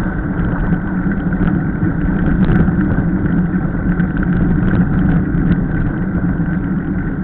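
Steady rush of wind on the microphone with the tyre noise of a mountain bike descending fast on asphalt, with faint ticks and rattles over it.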